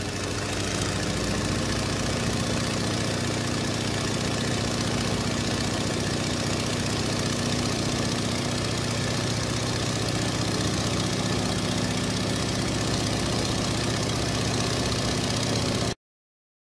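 Airplane engine drone, a steady low hum over a wide rushing hiss, cutting off suddenly near the end.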